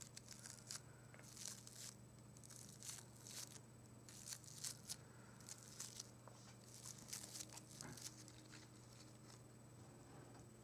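Fingertips and nails brushing and rustling the petals of a bouquet of fresh flowers, soft crinkly rustles coming and going in short bursts, over a faint low hum.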